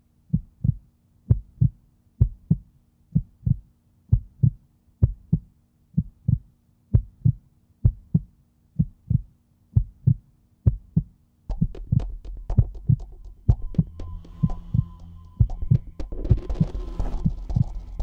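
Soundtrack heartbeat effect: deep double thumps about once a second. About halfway through, a low drone swells in under them and the beats come faster, with a high steady tone added later as the score builds.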